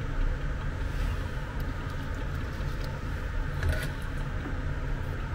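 Steady low mechanical rumble in the background, with a brief faint rustle nearly four seconds in as solder wire is pulled off its spool.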